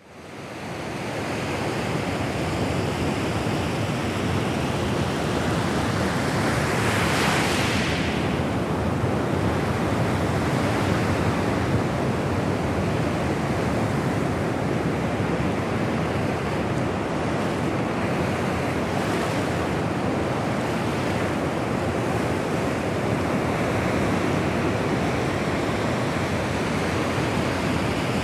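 Atlantic Ocean waves lapping on the shore: a steady wash of surf that fades in at the start, with one brighter, hissier wave washing in about seven seconds in.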